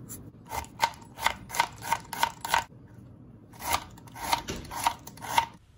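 Serrated kitchen knife chopping raw beetroot on a wooden cutting board: a run of quick cuts, about four a second, each knocking on the board, with a short pause about halfway.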